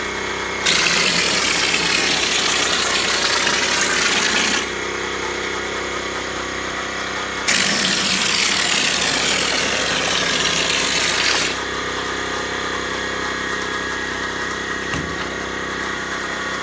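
Small pancake air compressor running steadily, with two long bursts of hissing air from a stucco hopper sprayer blasting mortar onto a wall. Each burst lasts about four seconds: the first starts about a second in, the second about halfway through.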